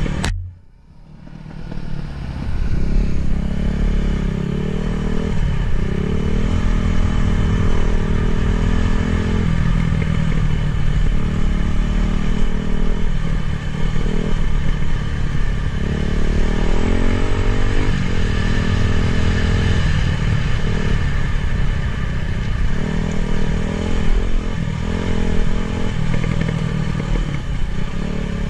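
Dirt bike engine running on a trail ride, its pitch rising and falling again and again as the throttle opens and closes. The sound dips sharply for about a second near the start before the engine comes back at full level.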